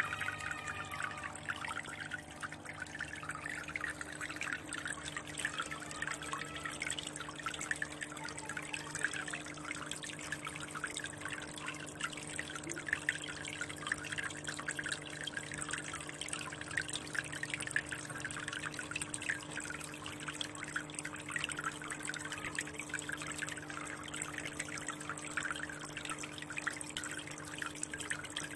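Aquarium water trickling and bubbling steadily, with a steady low hum underneath.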